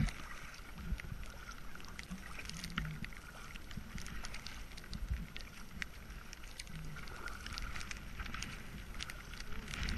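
Kayak being paddled: the paddle blades dip and splash, and water drips with many small scattered clicks over a steady background of water and light wind on the microphone.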